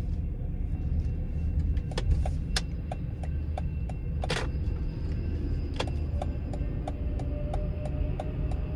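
Grade-crossing warning bell ringing steadily at about three strikes a second over the low rumble of a Metrolink commuter train passing through the crossing. A single sharp knock comes about four seconds in.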